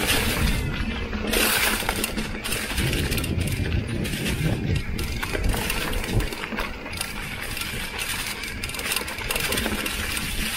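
Mountain bike rolling along a trail covered in dry fallen leaves: the tyres crunch and rustle through the leaves, with rattles and clicks from the bike over the bumps.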